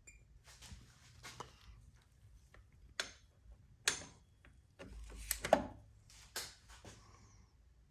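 A short electronic beep, then scattered metallic clicks and knocks of a socket and electronic torque wrench being handled and fitted onto the cylinder head bolts, with a cluster of knocks a little past halfway.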